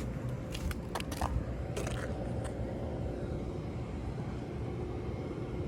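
Steady low background rumble with a few light clicks in the first two seconds or so.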